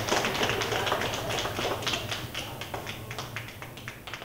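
Irregular sharp clicks and taps over a low steady hum, thinning and fading out toward the end.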